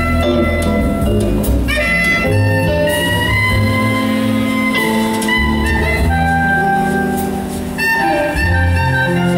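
Live jazz band: a saxophone plays a melody of long held notes over upright bass, piano and drum kit.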